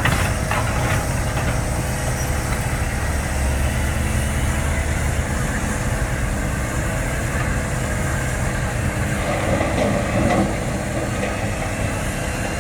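Heavy diesel engine running steadily, with a few sharp metallic clanks near the start.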